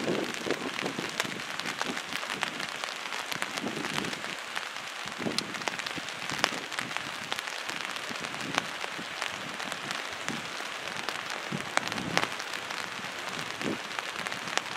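Steady watery hiss scattered with many sharp ticks: rain falling, heard over the fast-flowing floodwater of the River Wye.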